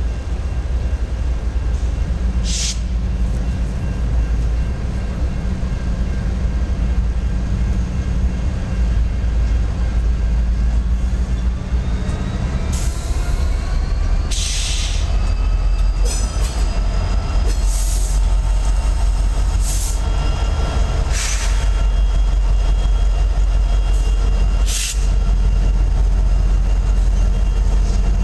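A Norfolk Southern freight train led by SD60E diesel-electric locomotives rumbles heavily as it rolls past at close range. About halfway through, the engines' pitch climbs as the lead units go by. Several short, sharp bursts of hiss are heard along the way.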